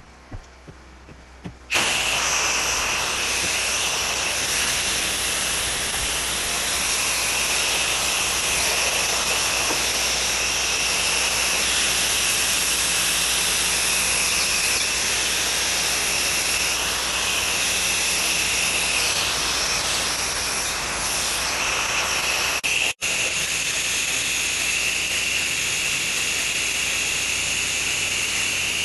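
Pressure washer spraying water onto a house, a loud steady hiss with a low machine hum under it, starting suddenly about two seconds in and cutting out for an instant about 23 seconds in.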